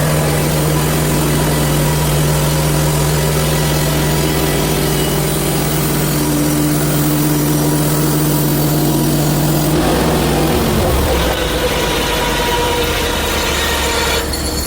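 Portable bandsaw mill's gasoline engine running at speed with a steady tone. About ten seconds in the pitch drops and a rougher, hissing noise comes up, as the engine takes load with the band blade cutting into the log.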